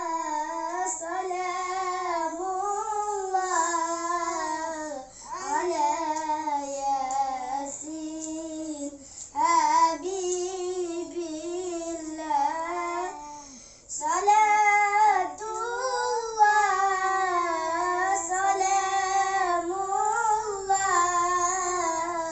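Two young boys singing salawat, an Islamic devotional song praising the Prophet, together without accompaniment in a steady, flowing melody, pausing briefly for breath a few times.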